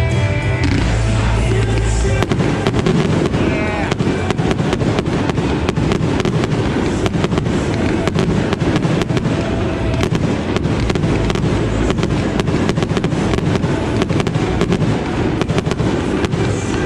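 Fireworks display: a rapid, dense run of bangs and crackles that starts about two seconds in and keeps going, over music playing throughout.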